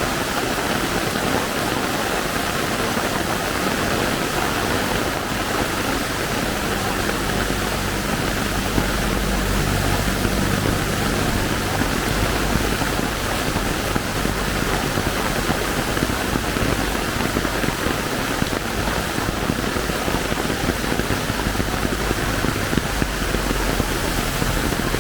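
Heavy rain pouring steadily. A low engine hum comes in for a few seconds about a quarter of the way in, and again near the end.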